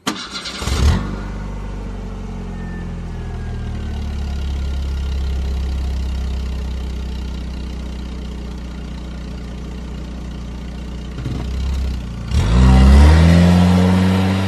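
A car engine is cranked and catches within about a second, then idles steadily. About twelve seconds in it is revved hard, the pitch rising quickly to a peak before it falls back.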